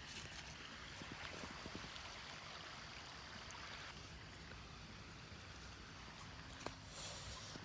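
Faint steady rushing noise with a few small clicks and taps, and one sharper click near the end.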